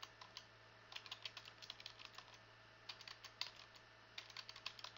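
Typing on a computer keyboard: faint runs of key clicks broken by short pauses, over a steady low hum.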